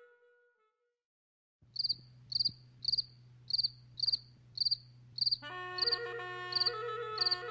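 A cricket chirping in short, evenly spaced chirps about twice a second, over a steady low hum. Soft background music fades out just before the chirping begins and comes back in about two seconds before the end.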